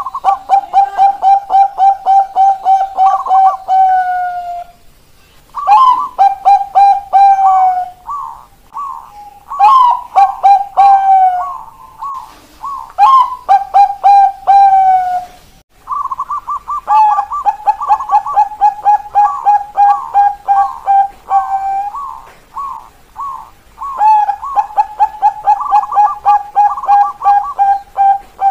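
Caged zebra doves of the Bangkok song strain (perkutut Bangkok) singing: phrases of a few seconds made of a quick run of short cooing notes, each opening on a higher note and ending with a falling coo. The phrases come one after another with short gaps and overlap in the middle, as more than one bird sings.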